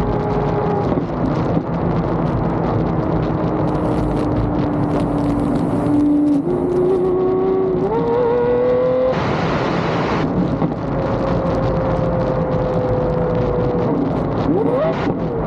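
Car engine and road noise heard while driving. The engine note slowly sinks, then climbs in a few quick steps about six to nine seconds in, with a brief rush of noise just after, and swings up and down near the end.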